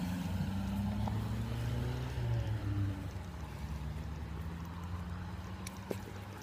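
A motor vehicle's engine hum, low and steady, with a slight downward glide in pitch about two to three seconds in, then fading. This fits a car passing on the road nearby.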